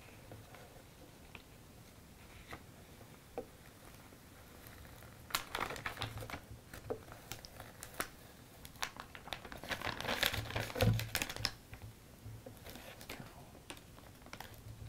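Clear vinyl transfer tape being peeled back off adhesive vinyl lettering, crinkling and crackling in a quick run of small sounds from about five seconds in until near the end, loudest a little past the middle. A few faint ticks come before it.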